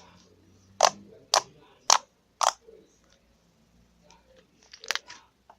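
Slime mixed with EVA foam clay being pressed and squished by hand, giving sharp popping clicks about every half second, then a quick cluster of pops near the end.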